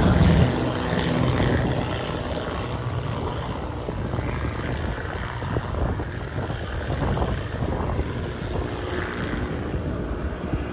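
Turboprop aircraft's engines and propellers at takeoff: a strong propeller drone that drops away about half a second in, then a rushing noise that slowly fades as the plane climbs away.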